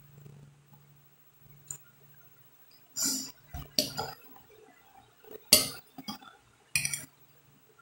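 Metal fork clinking against a glass plate: a handful of sharp clinks about a second apart, over a faint low steady hum.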